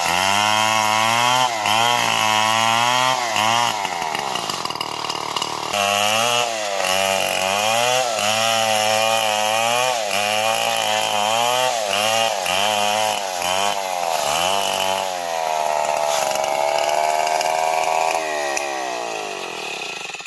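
STIHL MS 070 two-stroke chainsaw running under load, cutting wood, its engine pitch wavering up and down as the chain bites. The pitch sags about four seconds in, then climbs again, and the saw dies away at the very end.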